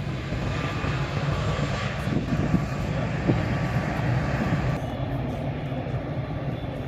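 Jet engines of a four-engined Airbus A380 running as the airliner turns on the runway: a steady low rumble with a faint, steady whine above it.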